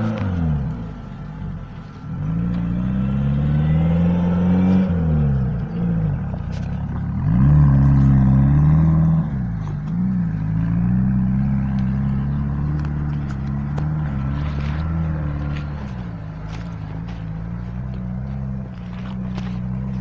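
Off-road trial truck's engine revving hard in deep mud, its pitch repeatedly dropping and climbing again as it works the throttle, loudest about eight seconds in, with scattered knocks and clatter.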